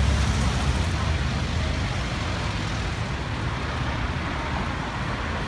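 A motorcycle passing close by on the street, its engine loudest at the start and fading as it moves away, over steady traffic noise.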